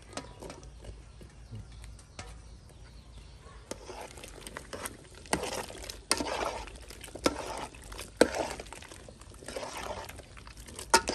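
Earthstar (hed phor) mushrooms dropping from a metal tray into an aluminium pot of hot curry, then a ladle stirring it. The liquid sloshes in several swishes, with sharp clicks of the ladle against the pot.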